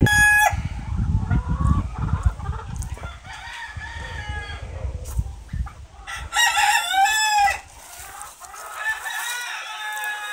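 Dutch white-crested chickens clucking, with a rooster crowing loudly about six seconds in and a softer drawn-out call near the end. A low rumble runs under the first few seconds.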